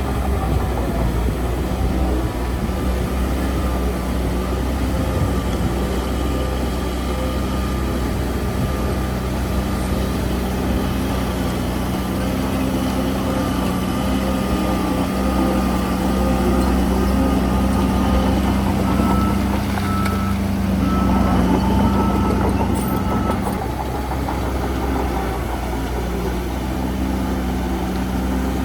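Heavy construction machinery's diesel engine running steadily, a continuous low hum with a thin steady whine over it.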